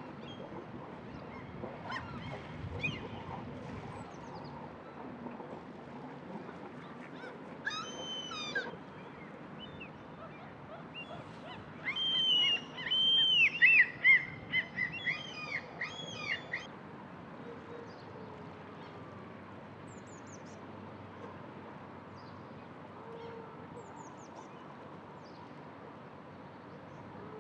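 Gulls calling: a short group of calls about eight seconds in, then a loud, rapid series of arching calls lasting about five seconds, over a steady background hiss.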